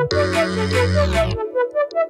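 Background instrumental music: a melody of short repeated notes over a deep sustained bass, the bass dropping out about three quarters of the way through.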